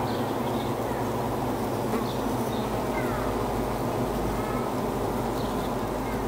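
Dense, steady buzzing of a swarm of bees, with faint high chirps above it now and then.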